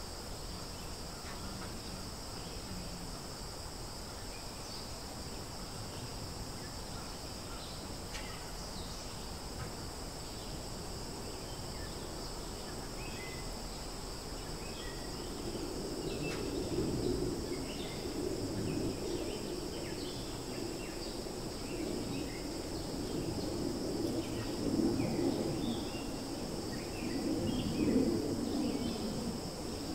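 Steady, high-pitched insect drone of crickets or cicadas, with short scattered chirps over it. From about halfway, a louder low noise swells in and out beneath it.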